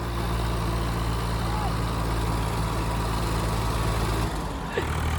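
Diesel tractor engine idling steadily, with a brief dip and change in its note near the end.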